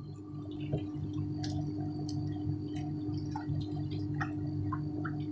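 Homemade brine-tank ice block machine running: a steady hum with a pulsing low drone beneath it, and a few faint ticks scattered through it.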